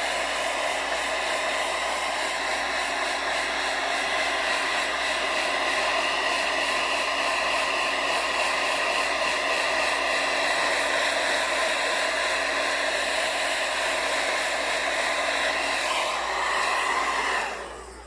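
Hand-held hair dryer blowing steadily with a motor whine, switched off near the end, its fan spinning down.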